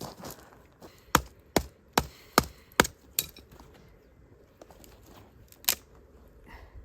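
A wooden stake being pounded into the ground: six sharp wooden knocks at about two or three a second, then one more knock a couple of seconds later.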